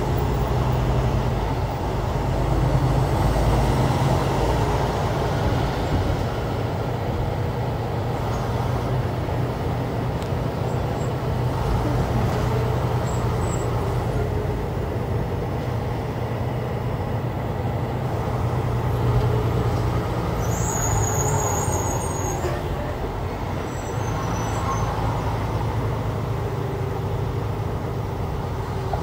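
Semi truck's diesel engine running and road noise heard from inside the cab while driving on the highway: a steady low drone that swells and eases slightly with throttle.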